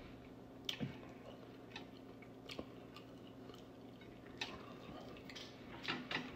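A person quietly chewing food, with soft mouth clicks now and then, over a faint steady hum.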